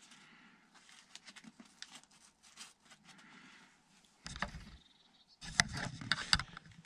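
Faint rustling of a backpack's nylon fabric and straps, with small clicks, as hands search the top of the pack for its hanging loop. From about four seconds in come two louder spells of rustling and bumping with dull thuds.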